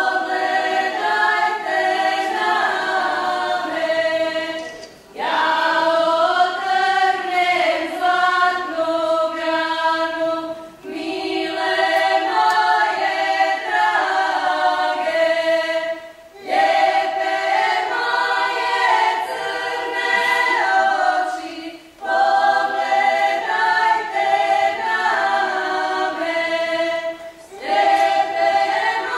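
Women's folk choir singing a Croatian Moslavina folk song unaccompanied, in phrases of about five seconds with a short breath between each.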